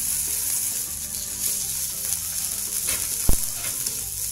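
Whole snakehead fish frying in shallow hot oil in a wok: a steady, high sizzling hiss. There is a single sharp tap about three seconds in.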